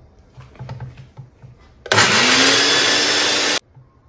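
A Recon electric mixer grinder's small steel jar grinds ginger and green chillies in one short run of about a second and a half. The motor's pitch rises as it spins up, then the run cuts off suddenly. A few light knocks come before it as the jar lid is pressed into place.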